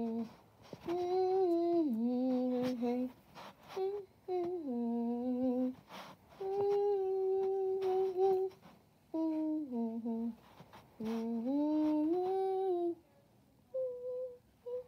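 A person humming a wandering tune in held notes that slide up and down, phrase after phrase with short breaks between, and a few faint clicks in the gaps.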